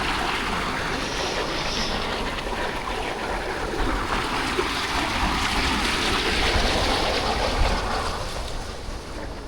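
Running floodwater rushing steadily, with a low wind rumble on the microphone.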